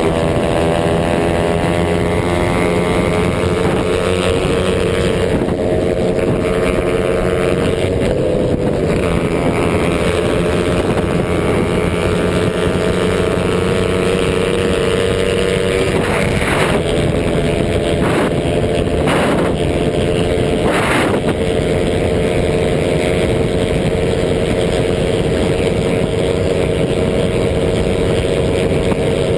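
Motorcycle engine running steadily at cruising speed, heard from a camera mounted on the bike, with wind noise over the microphone. A few brief rushes of noise break in a little past halfway.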